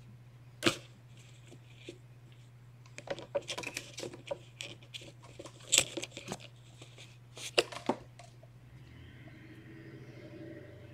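Kittens playing with toys and the cat tree: a scatter of sharp clicks, knocks and crinkles, a few of them loud, over a steady low hum.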